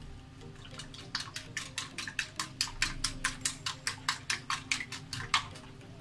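Hand whisk beating a raw egg omelette mixture in a glass bowl, clicking against the glass about five times a second. It starts about a second in and stops shortly before the end.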